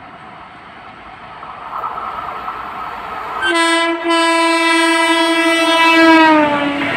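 WAP7 electric locomotive approaching at speed and sounding its horn in one long blast of about three and a half seconds, over train noise that grows louder. Near the end of the blast the horn's pitch drops as the locomotive passes.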